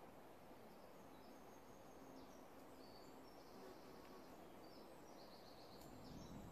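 Near silence: faint woodland ambience with a few distant, high bird chirps and a brief trill about five seconds in.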